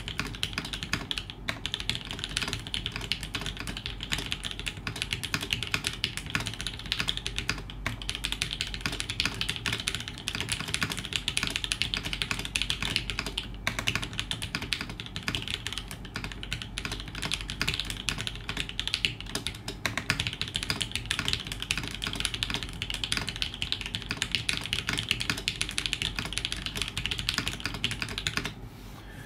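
Fast touch-typing on a custom TGR Alice mechanical keyboard with lubed Shiro switches on an FR4 plate in a polycarbonate case, with GMK keycaps: a rapid, even clatter of keystrokes at about 112 words per minute that stops shortly before the end.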